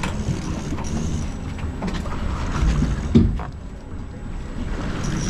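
Wind and water noise aboard a fishing boat at sea, with one sharp knock about three seconds in.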